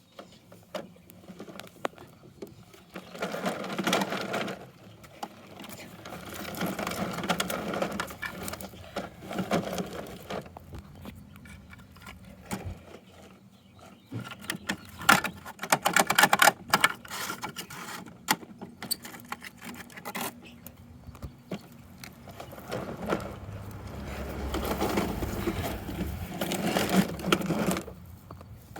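Plastic toy garbage truck being played with: its parts clatter and rattle in several bouts, with sharp clicks, the loudest in the middle.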